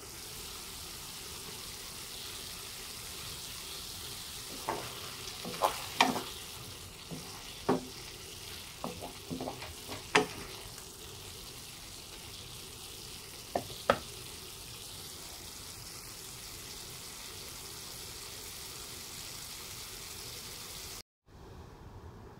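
Chicken and broccoli sizzling steadily in a frying pan, with a wooden spatula stirring and clacking against the pan a dozen or so times in the middle stretch. The sound cuts out for a moment near the end.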